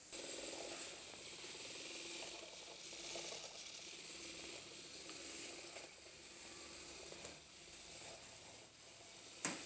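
Homemade toy mini washing machine running: its small motor turns the impeller, churning water and a piece of cloth with a faint steady hiss. A sharp click comes near the end.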